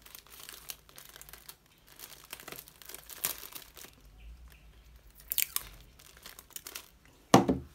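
Clear plastic packaging bag crinkling and rustling as it is handled and taped shut with a desktop tape dispenser, with tape being pulled and cut off. A short, loud rasp near the end is the loudest sound.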